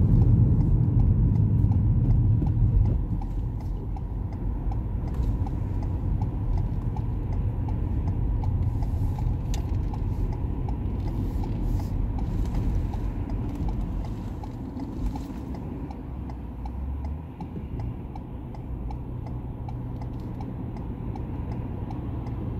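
Car's turn indicator ticking in an even rhythm inside the cabin, over engine and road rumble. The rumble drops after about three seconds as the car slows.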